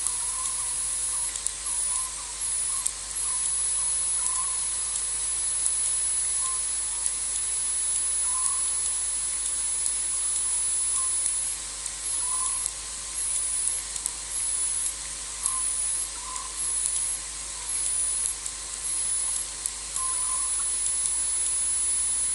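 Steady high-pitched hiss of a night-time insect chorus, with faint short chirps every second or two.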